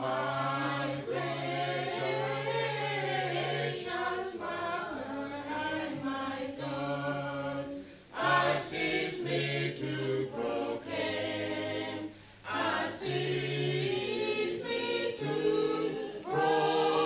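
A small group of men's and women's voices singing a hymn together, in harmony, with short breaks between lines about eight seconds in and again near thirteen seconds.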